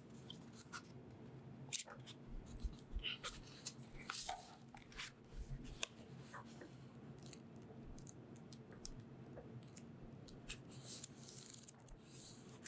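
Pages of a paperback book being leafed through by hand: scattered papery rustles and soft flicks, over a faint steady low hum.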